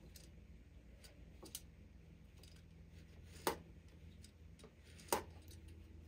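A few light clicks and taps from marking tools and fabric being handled on a work table, spaced a second or two apart, the sharpest about halfway through.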